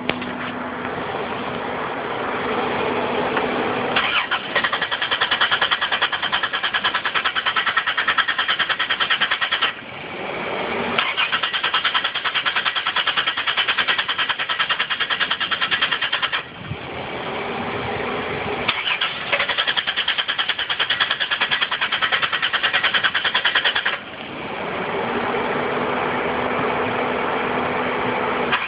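A car engine being cranked by its starter in three attempts of about five seconds each, pulsing rapidly and evenly, never catching: the car won't start. A steady hum fills the gaps between attempts.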